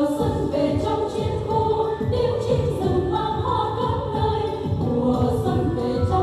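A group of women singing a Vietnamese song together, amplified through handheld microphones, over a rhythmic instrumental accompaniment.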